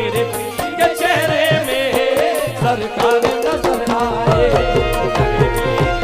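Live qawwali ensemble music with no lyrics: a melody line with held and gliding notes over a steady hand-drum beat.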